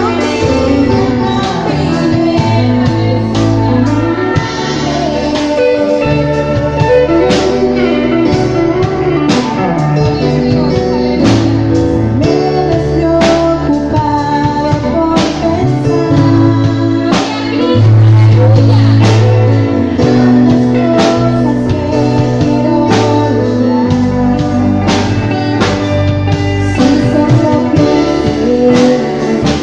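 A band playing music with singing over guitar, bass and a steady drum beat.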